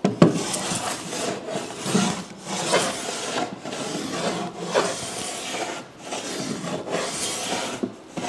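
Metal hand plane shaving a pine board, a rasping stroke about every second with short breaks between strokes.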